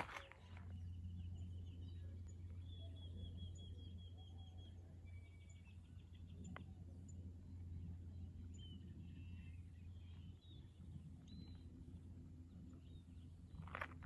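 Wild birds chirping, with a quick trill of rapidly repeated notes about three seconds in and scattered single calls after it, over a faint, steady low rumble. A footstep crunches near the end.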